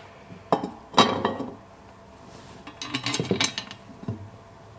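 Steel tubes of a wheelbarrow frame knocking and clinking against each other and the table as the supports and wheel brace are fitted together. There are two sharp knocks about half a second and a second in, then a quick run of lighter clinks around three seconds in.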